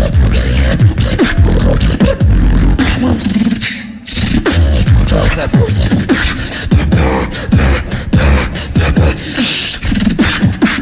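Solo beatboxing into a handheld microphone, amplified through a PA: a fast, dense pattern of kick and snare-like mouth hits over deep bass, with a brief break about four seconds in before the pattern picks up again.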